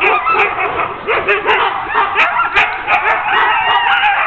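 Many Siberian huskies of a sled-dog team barking and crying out over one another in an unbroken chorus. This is the excited din of sled dogs being hooked up to the gangline, eager to run.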